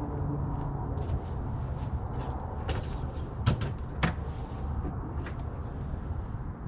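Two sharp clunks about half a second apart, a little past the middle, with a few fainter clicks, as objects are handled by a back door; a steady low rumble runs underneath.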